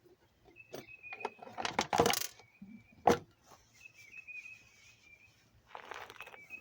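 Clicks and clatter of a screwdriver and plastic parts being handled while a cordless electric kettle is unscrewed and taken apart: a loud rattle about two seconds in, a sharp clack a second later, and a shorter rattle near the end. A thin, wavering high whistle comes and goes in the background.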